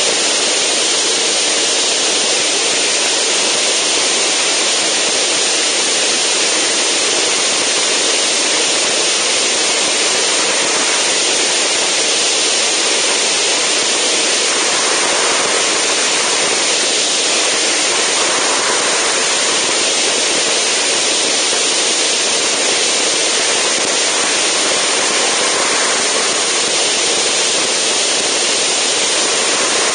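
Steady loud rush of wind over an outside-mounted camera on a Zenith STOL CH750 in flight, with the aircraft's engine and propeller buried in the hiss.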